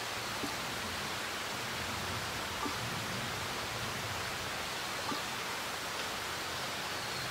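Steady, even hiss of outdoor forest ambience, with a few faint short ticks about every two and a half seconds.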